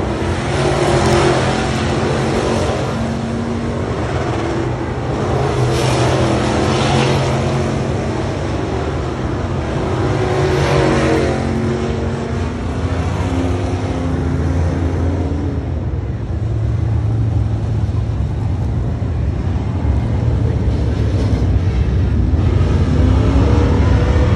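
Several dirt late model race cars' V8 engines running at speed on hot laps, swelling louder several times in the first half as cars pass close by, then settling into a steady, lower rumble as they run farther off.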